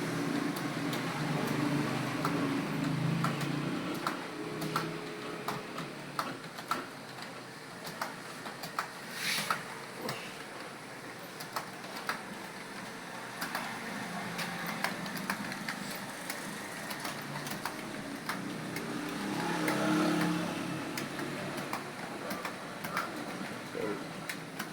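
Computer keyboard being typed on: a run of irregular key clicks, over a low rumble of vehicle traffic that swells near the start and again past the middle.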